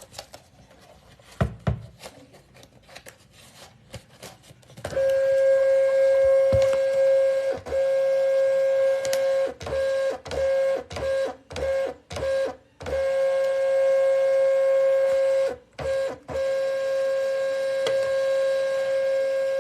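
Rollo thermal label printer's feed motor running with a steady whine as it draws in fresh labels, broken midway by a series of short stop-and-start pulses. Light clicks of handling come before the motor starts about five seconds in.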